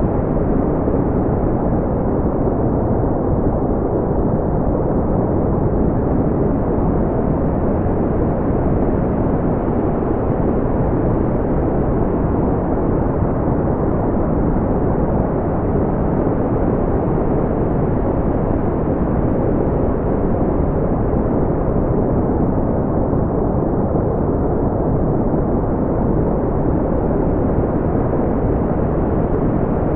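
Steady brown noise: a deep, even rumbling hiss, strongest in the low end and rolled off in the highs, with no change in level.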